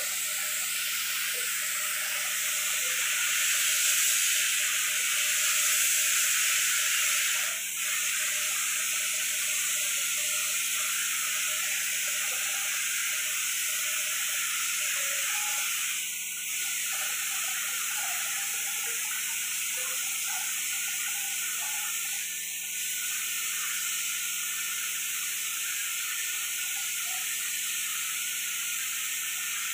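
Compressed-air paint spray gun with a gravity-feed cup spraying paint onto a wall: a steady hiss that dips briefly three times.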